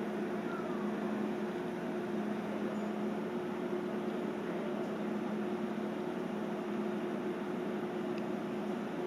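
Steady machine hum: two low held tones over a constant hiss, with no change throughout.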